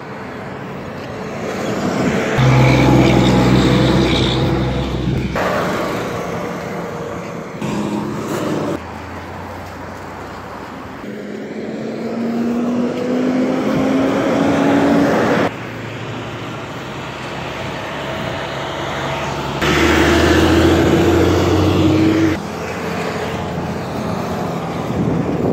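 Road traffic going by: heavy trucks and cars pass one after another with a low diesel engine sound. In the middle, one engine's pitch rises steadily as it accelerates.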